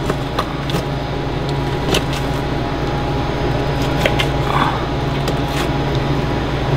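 Steady low mechanical hum of a running motor, with a few faint clicks and soft handling noises from knife work on a hanging carcass.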